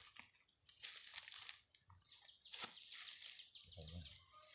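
Dry leaves and a woven plastic sack rustling and crinkling as hands handle a snake trap in leaf litter, in two main bursts about one and three seconds in.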